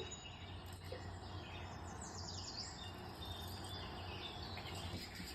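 Faint bird chirps and insect-like trilling from a cat-entertainment video, over a steady low hum.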